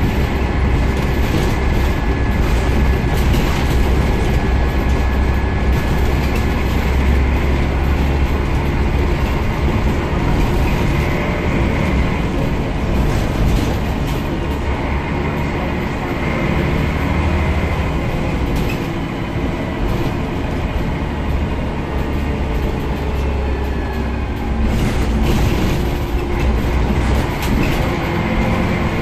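Scania CN94UB bus on the move, heard from inside the saloon: a steady deep diesel drone with road noise and scattered rattles. It eases a little past the middle and pulls harder again near the end.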